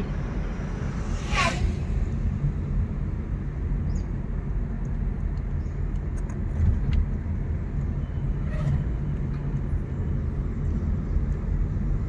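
Car driving along a narrow country road, heard inside the cabin: a steady low rumble of engine and tyres. About a second and a half in, a brief high sweeping sound cuts across it.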